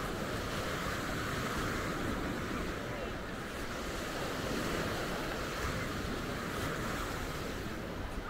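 Small surf washing steadily onto a sandy beach, with wind rumbling on the microphone.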